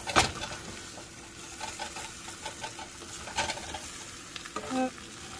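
Scrambled eggs and crisp fried tortilla pieces sizzling in a frying pan while a spatula stirs and scrapes them, with a sharp knock of the spatula against the pan just after the start.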